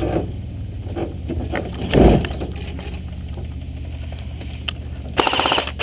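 Vehicle engine running steadily underneath, with a dull thump about two seconds in. Near the end an airsoft electric machine gun, an Echo1 RPK, fires a rapid burst.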